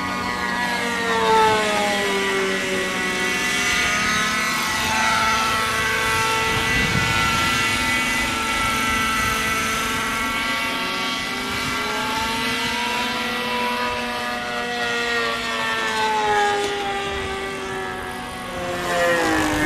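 Radio-controlled model airplane in flight, its engine and propeller making a continuous whining drone. The pitch falls, rises again about halfway through, and falls once more near the end as the plane manoeuvres and passes.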